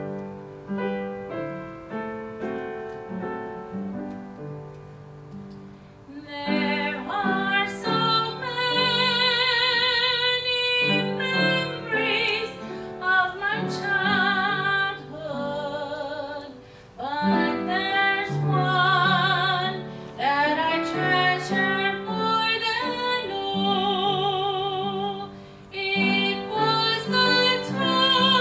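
Piano playing a gospel introduction, then a woman starts singing with a wide vibrato over the piano about six seconds in.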